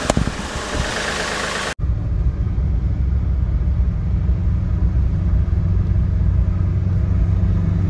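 A car's engine and road noise while driving: a steady low rumble, after a loud hiss that cuts off suddenly about two seconds in.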